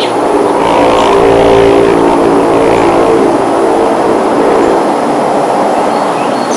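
Aircraft passing overhead: a loud drone with a steady hum in it that swells to its peak a second or two in, then slowly fades.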